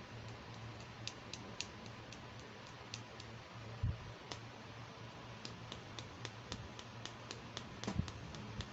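Small hard plastic toy parts clicking and tapping as they are handled, with light irregular clicks as a red plastic disc is worked off a pink plastic toy piece. A couple of soft thumps come about four seconds in and near the end.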